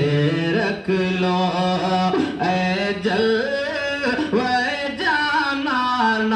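A man singing a naat, an Urdu devotional poem, in long drawn-out notes that glide and bend between pitches, with short breaks between phrases.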